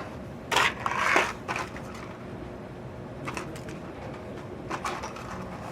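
Hands handling computer parts: short bursts of rustling and light clatter, the loudest burst about half a second to a second in, with a few smaller ones later.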